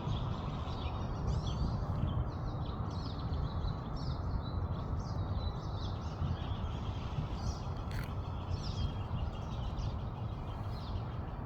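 Small birds chirping and calling repeatedly over a steady low rumble, with one sharp click about eight seconds in.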